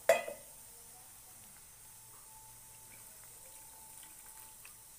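Water being poured into a metal kadhai onto a thick peanut-and-potato paste: a short sharp knock at the very start, then a faint steady pour.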